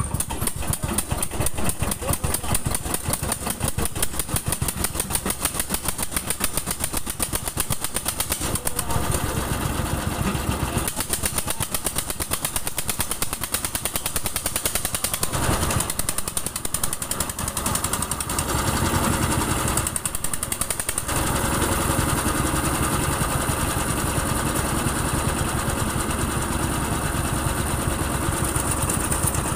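A machine's engine running with a fast, even chugging beat, sputtering a little. Its sound shifts a few times.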